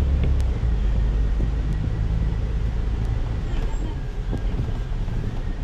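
Engine drone and road rumble inside a moving city bus, with a few small rattles. The deepest part of the drone eases off about half a second in.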